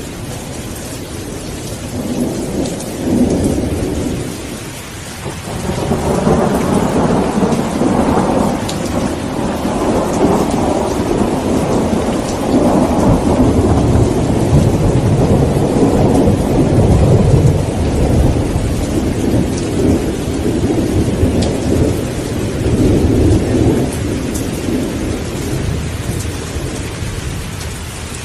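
Steady rain hissing under rolling thunder. A short rumble comes about two seconds in, then a long roll of thunder builds from about six seconds and slowly fades near the end.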